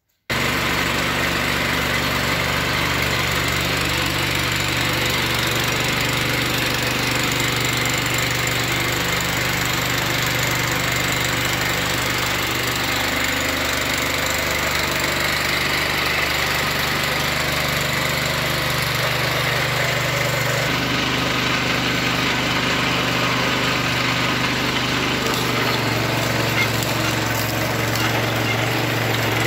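Small petrol engine running steadily, driving a sugarcane juice press. It cuts in suddenly just after the start, and its tone shifts about two-thirds of the way through.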